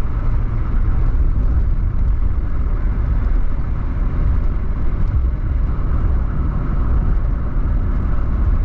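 Steady road and engine noise of a car driving along a highway, heard from inside the cabin.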